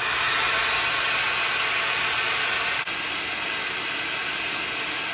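Heat gun blowing: a steady hiss of rushing air from its fan, heating a battery BMS's high-temperature thermal switch to test its charge cutoff. The level drops slightly just under three seconds in.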